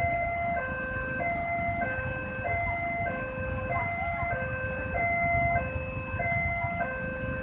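Railroad level-crossing warning alarm sounding a two-tone electronic chime that alternates high and low about every 0.6 seconds, with a steady low rumble underneath.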